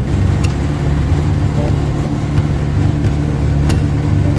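John Deere tractor running steadily, driving a square baler during hay baling, with a couple of sharp clacks over the engine hum.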